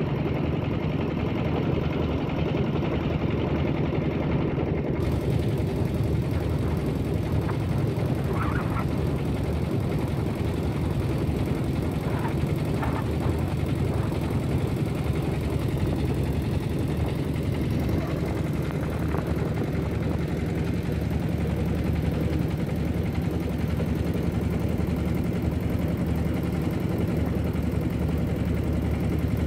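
A river passenger launch's engine running with a steady low drone, heard from on board.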